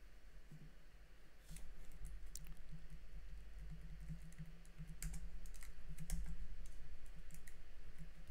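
Irregular clicks of a computer keyboard and mouse, starting about a second and a half in, over a low steady hum.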